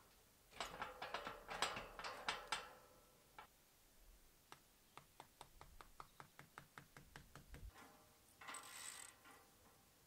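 Metal scaffold fittings being fixed to a wall: a cluster of clinks and knocks, then an even run of ratchet-like clicks, about five a second, and a short scrape near the end.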